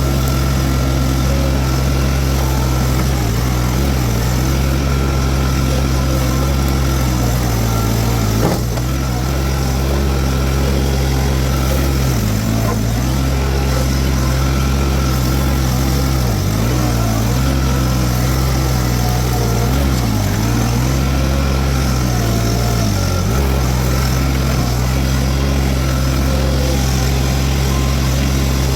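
Toro TX1000 mini skid steer's diesel engine running steadily at working speed while driving a Virnig V20 brush mower. Its pitch dips briefly four times in the second half, and there is one sharp knock about a third of the way in.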